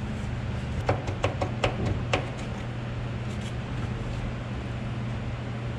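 A quick run of small sharp clicks and knocks, then a couple of fainter ones, as the fuel line fitting and its clamp are worked off the outlet pipe of a 1967 Ford Mustang's fuel tank sending unit by gloved hands. A steady low hum runs underneath.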